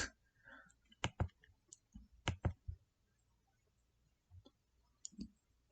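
Scattered short, sharp clicks: a pair about a second in, another pair a little after two seconds, and two more near the end, with quiet between.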